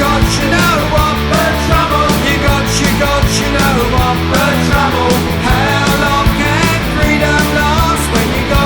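Punk rock recording playing at full volume: driving electric guitars, bass and drums, with a melodic line bending over the top.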